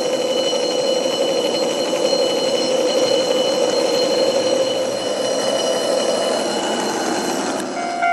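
Ikoma Cable funicular car running along its track at the level crossing: a steady rail rumble with high-pitched wheel whine, cutting off suddenly near the end.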